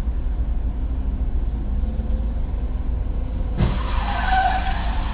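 Car engine and road rumble heard from inside the cabin on a dash camera, steady and low. About three and a half seconds in, a louder, harsher noise begins, with a brief squeal of tyres skidding.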